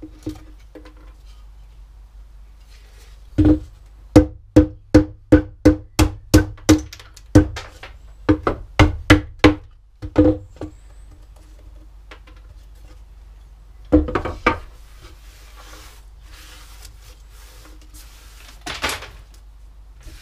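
Mallet knocking out the waste pieces between saw kerfs in a shaped wooden board: a run of sharp, ringing knocks, about three a second, then two more after a pause. Near the end, a few seconds of rustling and scraping as the loosened bits are cleared from the wood.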